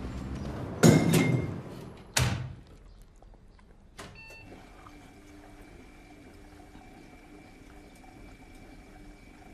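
Two loud thuds about a second and a half apart, each dying away quickly, followed by a small click and a faint steady high tone.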